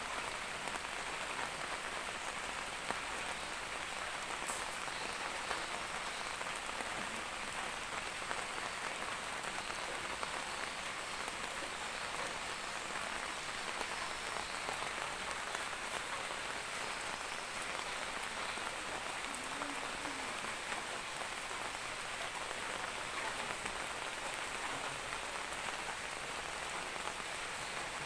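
Steady rain falling in a backyard, an even hiss of many drops with fine scattered ticks of individual drops landing.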